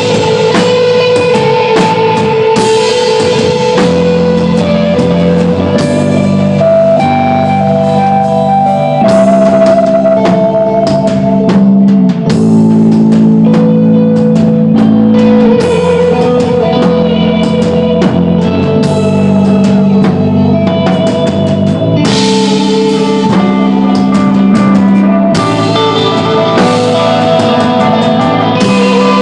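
Rock band playing live: electric guitar holding long, sustained notes over bass and drum kit.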